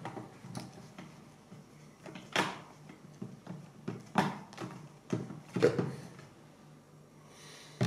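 Plastic LEGO parts clicking and knocking as the built LEGO Vespa model is handled and pressed together, a handful of sharp clicks spaced irregularly a second or more apart.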